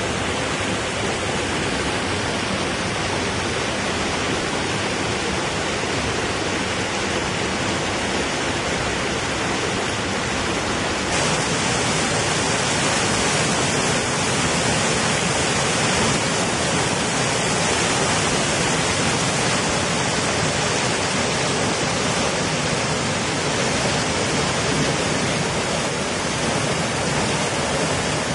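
Small waterfall: water pouring over a stone ledge into a pool, a steady rush. About eleven seconds in the rush turns brighter and a little louder.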